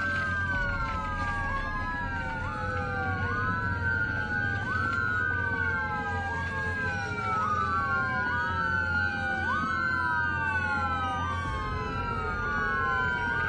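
Several fire engine sirens wailing at once and out of step with each other. Each one sweeps quickly up, holds briefly, then slides down again, about once every two seconds, over a steady low rumble.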